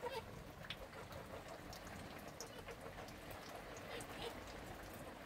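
Steady rain falling, with scattered drips ticking through it; a hen clucks briefly at the very start.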